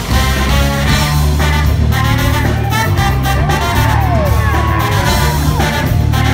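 Live band with trombone, saxophones, electric guitar, bass and drums playing loud, heard from the audience with a heavy bass end; a few sliding notes arch up and down in the middle.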